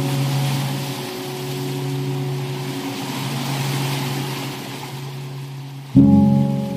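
Slow ambient relaxation music: soft sustained chords that fade slowly, with a new chord struck about six seconds in, over a steady soft rushing noise bed.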